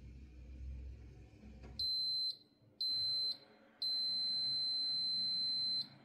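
Ariston dishwasher's electronic beeper sounding three high steady beeps, two short and one long, as the test programme ends and the machine switches itself off. A low machine hum stops just as the first beep starts.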